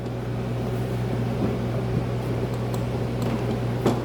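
Steady low mechanical hum with a faint whir, and a light tap near the end.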